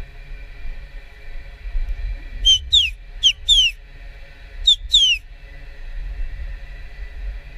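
Three pairs of short, high whistled notes, the second note of each pair gliding down in pitch, over a steady low rumble.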